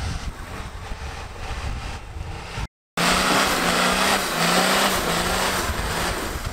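Off-road 4x4 engine running under load with a rush of noise around it. About three seconds in the sound cuts out briefly, then comes back louder, the engine held at high revs with small steps in pitch.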